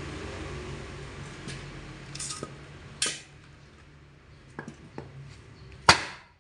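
Spoked motorcycle wheel being worked on to remove a dent: a steady whir from the hand-spun wheel dies away, then come several metallic clanks and knocks. Near the end there is a loud, ringing hammer blow on the wheel.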